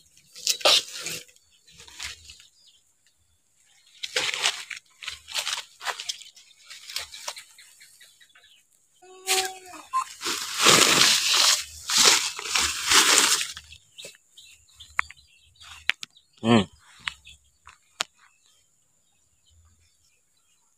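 Rustling and crackling of a white plastic sack and the green fodder in it as a hand rummages through it, loudest about ten to fourteen seconds in, with scattered rustles of leaves around it. A short animal call sounds once about sixteen seconds in.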